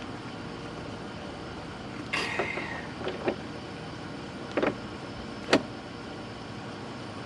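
Handling noises of a plastic fender flare being pushed against a pickup's wheel well while its first bolts are started: a short scrape about two seconds in, then a few light knocks and one sharp click.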